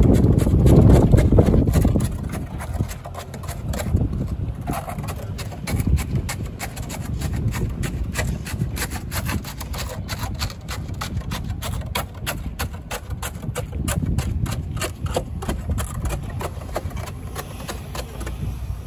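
A tamping pole packing wet concrete into the gap of a steel ring mould, a rapid run of sharp knocks as it is worked up and down against the metal forms. A low rumble fills the first couple of seconds.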